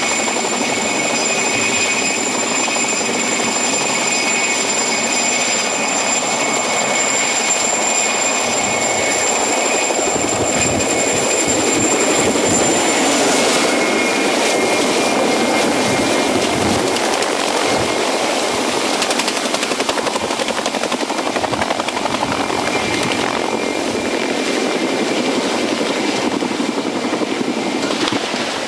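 Helicopter running close by: a steady high turbine whine over the rushing noise of rotor and downwash. About halfway through the sound changes character and the whine fades back into the rotor noise.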